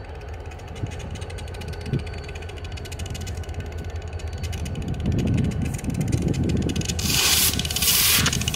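New York, Susquehanna & Western diesel locomotives running as they approach slowly, with a steady low engine drone that grows louder over the last few seconds. A loud rushing hiss comes in about seven seconds in and lasts a little over a second.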